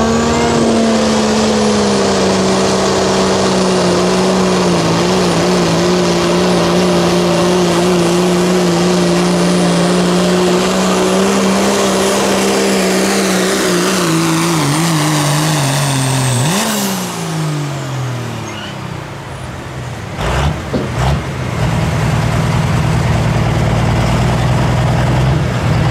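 Diesel pulling truck, a second-generation Dodge Ram with a turbocharged Cummins inline-six, held at high revs under load with a high steady turbo whistle for about sixteen seconds. Then the revs and the whistle fall away quickly as the pull ends. After a couple of knocks the engine runs on at low revs.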